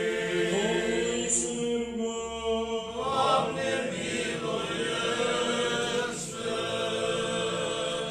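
Small group of voices singing an a cappella Orthodox liturgical chant response in a few long held notes.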